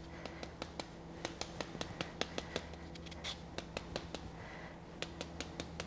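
Lemon being rasped across a handheld citrus zester: a run of faint, irregular scratchy strokes, several a second.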